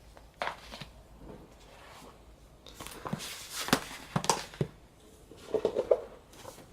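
Hands packing printed booklets, photo cards and inserts back into a cardboard album box: paper rustling with a cluster of light knocks and clicks in the middle.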